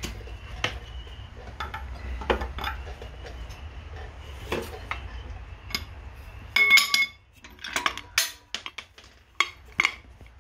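Metal clinks and knocks of a steel tailshaft and its U-joint yoke being shifted against the plates of a shop press, with a louder ringing metal clank about two-thirds of the way through.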